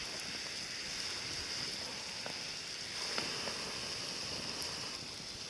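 Campfire hissing steadily with a few faint crackles.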